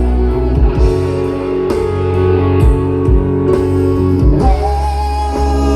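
Live pop band playing an instrumental passage without vocals: guitar over bass and drums, with a held lead melody entering near the end.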